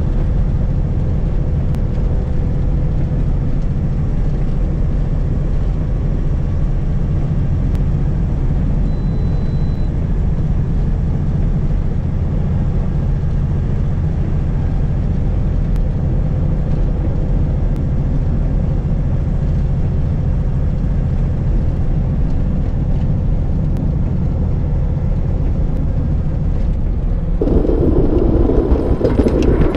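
Steady low rumble of a Mack Granite plow truck's diesel engine and road noise, heard from inside the cab while driving. Near the end a louder, rougher noise comes in over it.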